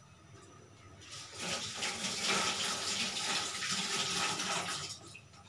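Water running from a tap in a steady stream, starting about a second in and stopping about four seconds later.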